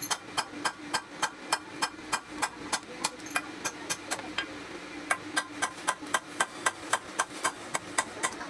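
Rapid, even tapping, about five sharp strikes a second, over a steady low hum.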